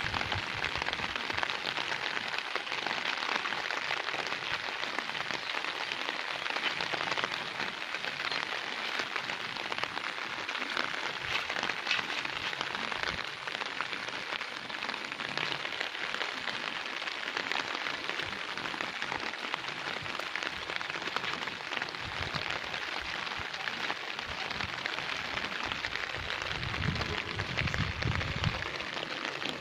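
Steady rain falling, an even hiss with no break, with a low rumble near the end.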